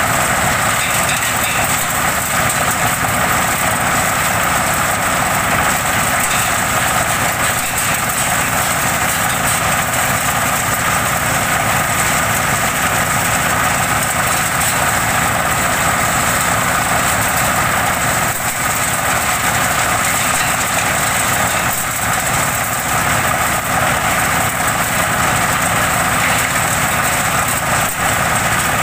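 Twelve-blade organic-waste chopper driven by a small single-cylinder diesel engine, running steadily at working speed while it shreds organic waste for compost, with a few faint knocks.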